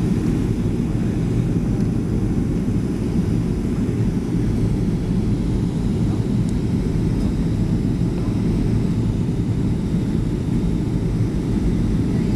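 Steady cabin noise inside a Boeing 737 airliner on its landing approach: engine and airflow noise making an even low rumble that does not change.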